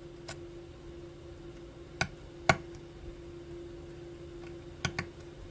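A few sharp clicks and taps of a hand tool against a wood-burned red oak plaque while its scorched surface is cleaned back, the loudest about two and a half seconds in and a quick pair near the end. A steady low hum runs underneath.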